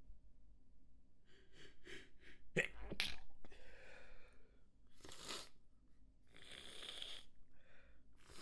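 A person in a sneezing fit: a few quick catching breaths, then two sharp sneezes in quick succession about three seconds in, the loudest moment, followed by more breathy sneezes and gasps.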